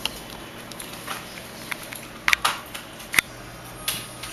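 Handling of a small slider mobile phone: a handful of sharp clicks and taps, the loudest a little over two seconds in and another about three seconds in.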